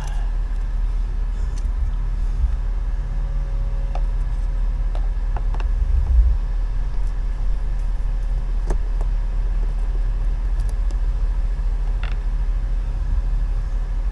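A steady low mechanical rumble and hum, with a few light, separate clicks from screws and plastic clips as an RV's skylight trim is worked loose by hand.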